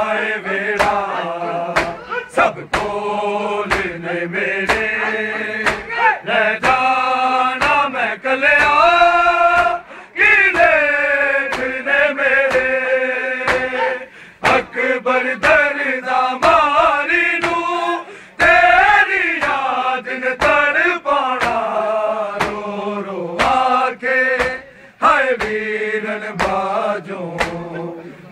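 A group of men chanting a Punjabi noha in unison, in long sung lines with short breaks between them. Over it, sharp rhythmic chest-beating slaps (matam) land about every two-thirds of a second.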